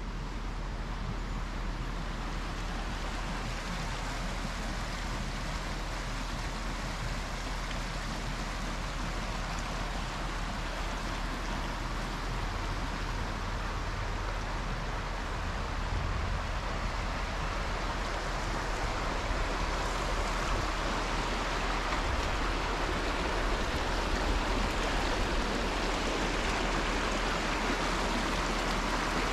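Shallow creek running over rocks, a steady rushing that grows louder through the second half, with a constant low rumble underneath.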